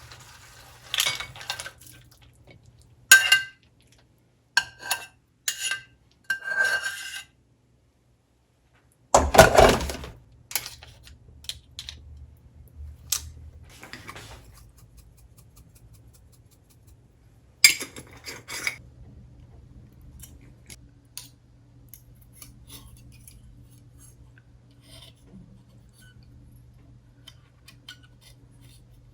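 Dishes and utensils clinking and clattering, a series of short ringing clinks followed by one louder knock, then scattered lighter clicks over a faint steady hum.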